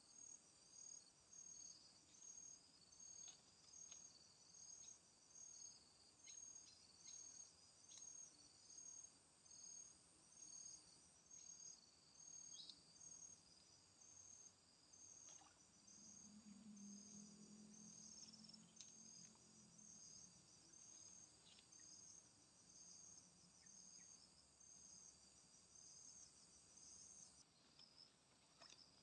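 Faint insects calling: a high-pitched pulsing chorus, repeating a little over once a second, which stops near the end. A faint low hum rises briefly in the middle.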